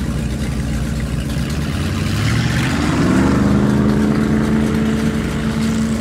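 Car engine sound effect of a vehicle driving: the engine's pitch rises about two to three seconds in as it accelerates, then holds steady.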